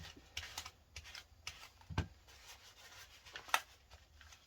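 Scrubbing and rubbing on the plastic shell of an Xbox 360 controller while it is cleaned: irregular short scratchy strokes, with a knock about two seconds in and a sharper, louder click about three and a half seconds in.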